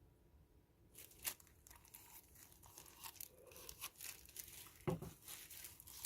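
Quiet handling noises: crinkling and rustling with a few sharp clicks, starting about a second in.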